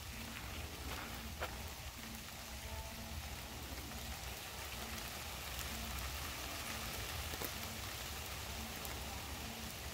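Steady outdoor background hiss with a low rumble and a few faint clicks.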